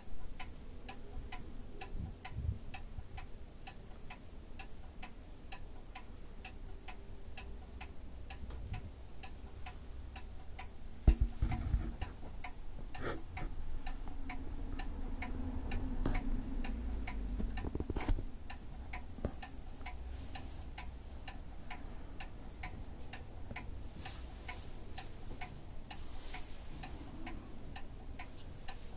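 A clock ticking steadily, about two ticks a second. A single low thump, the loudest sound, comes about eleven seconds in.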